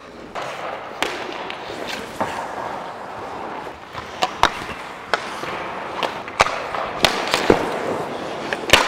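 Ice hockey skates scraping and carving the rink ice, with about eight sharp cracks of sticks and pucks striking, heard through a goalie's body mic during a shooting drill.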